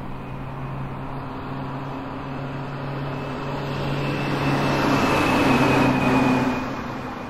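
Road traffic: a steady low engine hum, with a vehicle's engine and tyre noise swelling as it passes, loudest around five to six seconds in, then easing.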